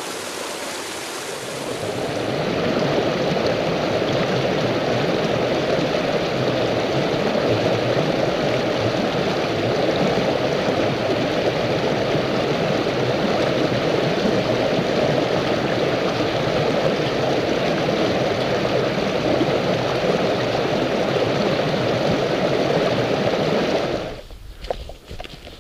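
Shallow rocky hill stream rushing over stones, a loud, steady water noise. It cuts off about a second before the end, leaving a few faint footsteps.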